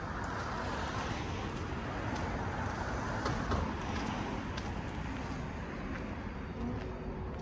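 Street ambience: a steady wash of road-traffic noise, with a few faint clicks.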